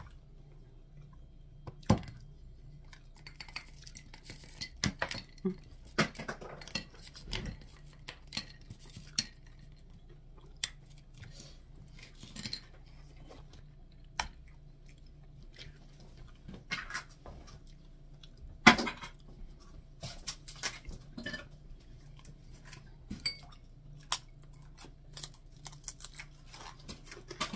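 Chewing and crunching of fried dried fish and dried squid, with scattered sharp clicks and knocks of dishes and a plastic food container being handled; the loudest knock comes about two-thirds of the way in.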